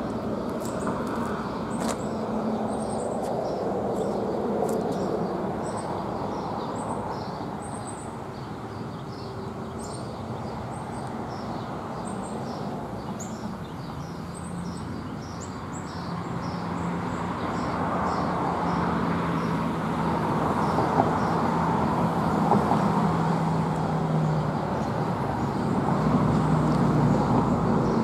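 Outdoor street ambience: a steady rumble of passing road traffic that grows louder in the second half, with small birds chirping over and over, mostly in the first half.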